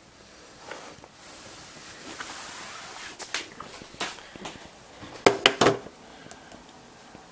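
Handling noise: a rustling hiss as the camera is moved, then scattered clicks and knocks, loudest a quick run of three about five seconds in, as the LED grid circuit board is handled on a wooden table.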